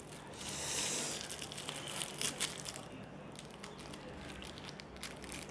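Small plastic-foil candy wrapper of Daddy Mummy paakku crinkling quietly as it is twisted open by hand, with scattered small ticks and rustles.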